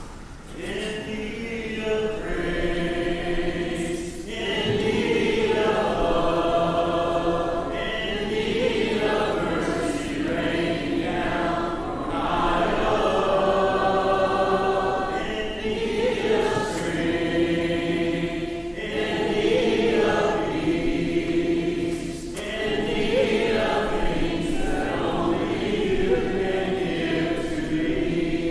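Congregation singing a hymn a cappella, in sung phrases of a few seconds with short breaks between them.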